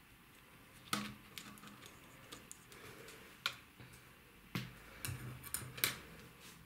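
Knitting needles clicking and tapping against each other as stitches are knitted off a cable needle: about eight sharp, irregular clicks.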